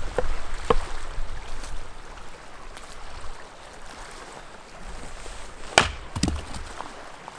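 Gränsfors Bruk axe chopping firewood: two light strikes in the first second, then two sharper, louder strikes in quick succession about six seconds in.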